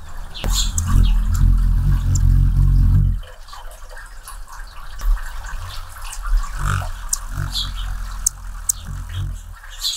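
Hummingbird's wings humming loudly as it hovers in close to the feeder for about three seconds, cutting off suddenly as it lands on the perch. After that, a few short wing flutters and high, thin ticking chip notes.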